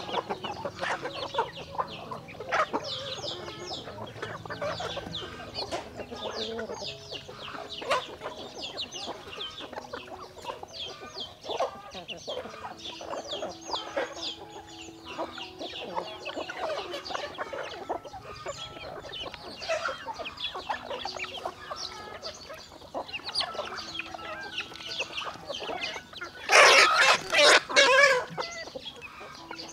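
A flock of chickens clucking and calling continuously with many short overlapping calls. Near the end one bird gives a single loud call lasting about a second and a half, the loudest thing here.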